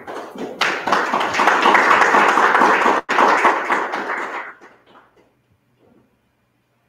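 Audience applauding, rising within the first second, cut off for an instant about three seconds in, and dying away after about four and a half seconds.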